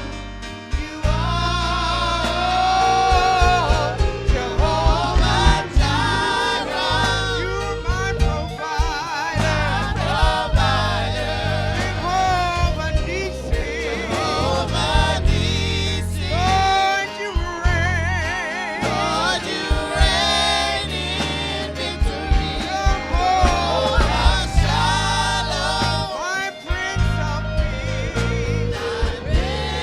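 Gospel praise music: singers with vibrato over steady bass and a regular beat.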